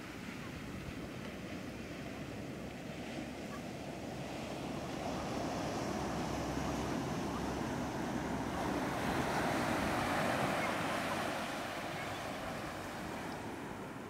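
Sea waves breaking and washing up a sandy beach: a steady rush of surf that builds past the middle, is loudest shortly after, and eases near the end.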